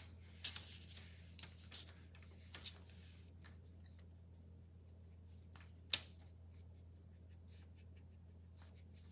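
Light taps of small wooden cutout letters being picked up and set down on a paper-covered table, with soft strokes of a paintbrush on wood, over a steady low hum. The taps come in a cluster in the first few seconds, with the sharpest one about six seconds in.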